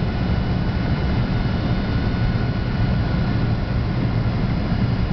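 Steady cabin noise of an Airbus A300-600 jet airliner on its landing approach: a low, even drone of engines and airflow heard from a window seat, with a few faint steady whining tones above it.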